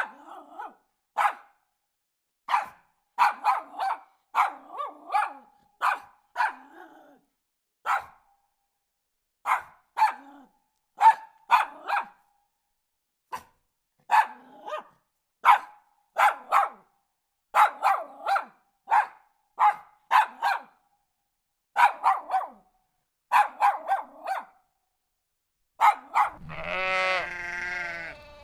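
A dog barking over and over in short, sharp barks, some single and some in quick runs of two to four, with brief pauses between. Near the end a long, wavering bleat begins.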